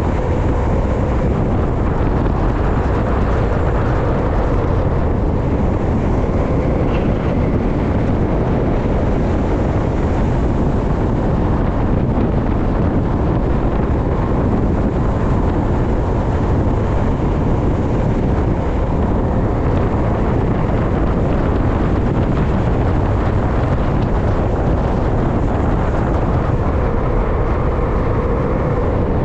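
Steady rush of wind over the microphone mixed with the rolling noise of skateboard wheels on asphalt during a fast downhill run.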